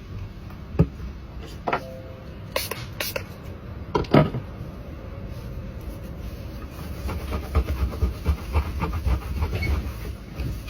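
Small hard clicks, taps and rubbing of tools and parts being handled on a phone-repair bench: a few separate knocks, the loudest about four seconds in, then a quick run of clicks and scraping near the end.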